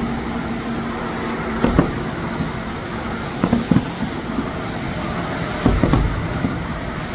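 Fireworks exploding: three clusters of dull booms, each a double bang, about two seconds apart, over a steady background rumble.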